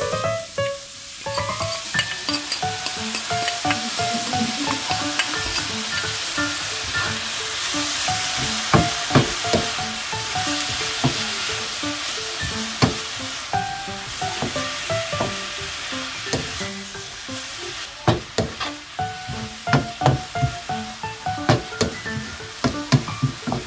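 Fish cake strips and shredded cabbage sizzling in a frying pan as they are stir-fried with a wooden spatula, with frequent scrapes and knocks of the spatula against the pan. The sizzle is steady through the middle and the spatula knocks come thicker near the end.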